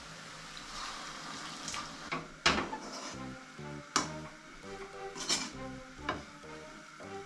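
A steel spatula scraping and knocking against an iron kadai as thick rice rava upma is stirred, with four sharp clanks spread through the stirring. Soft background music with a stepping bass line comes in about three seconds in.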